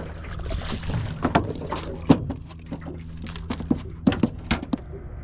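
Irregular knocks and clatter of a landing net and a freshly netted bream against an aluminium boat's hull and deck, with a splash of water early on, over a steady low hum.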